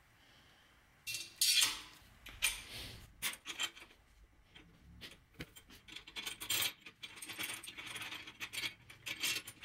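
Small metal hardware clinking and rattling as a bolt, washer and nut are fitted to a bent metal hold-down tab on a square-tube arm, with gloved hands rubbing against the parts. It starts after about a second of quiet and continues as a string of light, irregular clinks.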